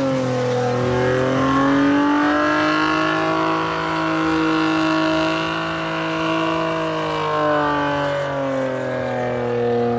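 A car doing a burnout: the engine held at high revs with the tyres spinning, making one continuous loud sound whose pitch drifts slowly up and down.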